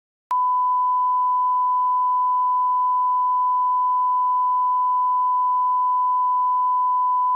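Broadcast line-up test tone played with television colour bars: a single steady pure beep at a constant level that cuts in abruptly and cuts off abruptly. It is the reference tone for setting audio levels.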